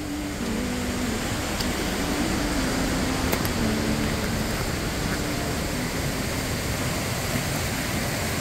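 Steady rushing of water flowing fast along a narrow stone-lined irrigation channel (a Valais Suone), a continuous even hiss with a low rumble underneath.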